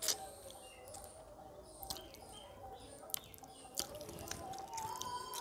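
Close-up mouth sounds of eating fish curry and rice by hand: wet clicks, smacks and sucks while chewing. The loudest comes right at the start as the food goes into the mouth.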